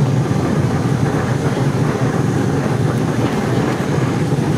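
Heritage electric tram running along its track, a steady low rumble of wheels on rails and running gear heard from on board.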